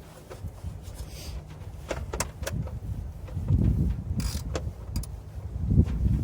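Hand tools and metal parts being handled while working on a lawn tractor: scattered clicks and knocks, with a short scraping burst about four seconds in.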